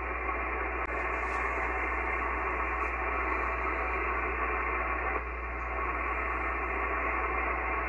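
Steady static hiss from an ICOM IC-7300 HF transceiver's speaker with no station coming through, the band noise cut off sharply above about 3 kHz, over a low steady hum.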